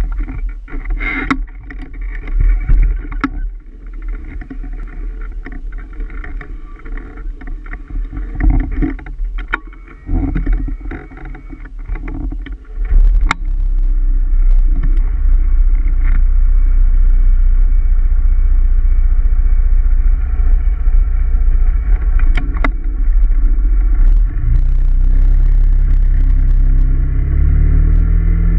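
Honda PCX 125 scooter's single-cylinder engine running as it pulls away and rides, with scattered clicks and knocks at first. About halfway through, a steady loud wind rumble on the camera's microphone takes over. Near the end the engine note rises as the scooter accelerates.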